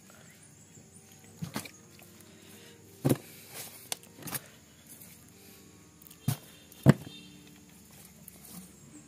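A hand handling a pile of freshly caught reef fish: a few scattered, irregular knocks and thuds as the fish are shifted and lifted, the loudest about two thirds of the way through.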